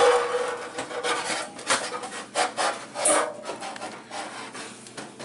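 Stainless steel kitchen sink scraping and rubbing against the edges of the countertop cutout as it is worked loose and out, in a run of irregular scrapes and knocks with a brief metallic ring at the start.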